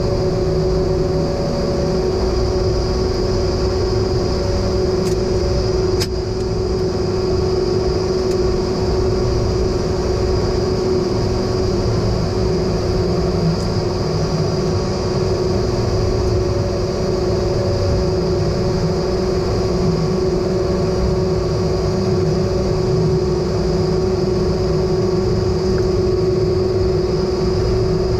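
Cockpit noise of an A-10 Thunderbolt II: its twin TF34 turbofan engines and airflow as a steady drone with a constant whine over a low rumble. There is one faint click about six seconds in.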